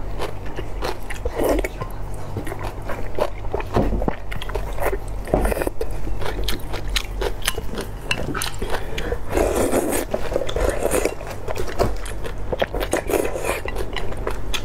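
Close-up eating sounds: wet chewing with many small clicks, and a few longer slurps of noodle-like strands and broth, the biggest about two-thirds of the way in and again near the end.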